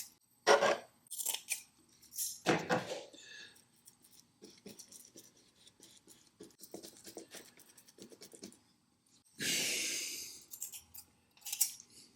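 Irregular snipping and clicking hand-work sounds, with one louder rasping, tearing noise lasting about a second near the end.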